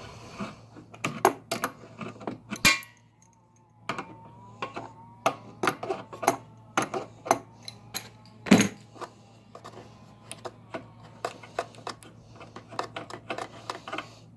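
Crescent wrench working a stubborn quick-connect coupler off an air compressor: irregular metal clicks, clinks and knocks, the loudest about eight and a half seconds in.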